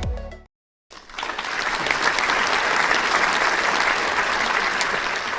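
Crowd applauding, a dense patter of many hands clapping that starts just under a second in after the background music ends.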